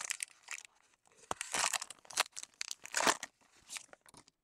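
A Panini Prizm baseball card pack wrapper being torn open and crinkled, in a few short rustling bursts.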